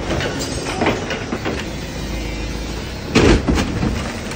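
A crane lifting a boat's wheelhouse off the deck, its machinery running with a steady low rumble, and a loud double knock from the lifted cabin about three seconds in.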